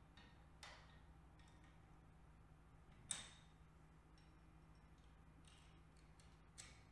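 Near silence with three faint metal clicks, the sharpest about three seconds in, as a connecting rod and its cap are fitted onto the crankshaft journal of a Honda CBX 1000 engine and the rod nut is started by hand.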